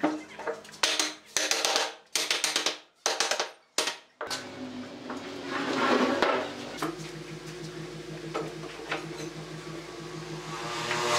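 Sharp wooden knocks as a table frame's leg and rail joints are tapped together, a string of them in the first four seconds. Later, light metallic clinks from steel pipe clamps being handled, over a steady low hum.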